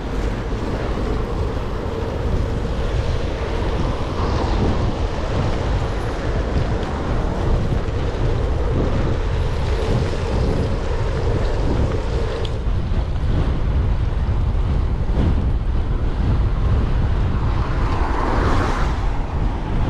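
Strong wind buffeting an action camera's microphone while cycling into a headwind: a steady, loud, deep rumble with a hiss over it.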